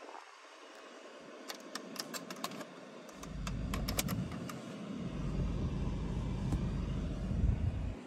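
A quick run of small plastic clicks from fingers working the rear air-vent controls on the centre console of a Proton X70. About three seconds in, a steady low rumble sets in and runs on under the clicks.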